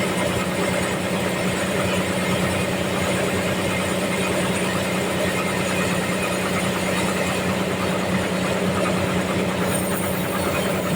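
Sawmill machinery running steadily: a constant mechanical drone with a strong low hum that does not change.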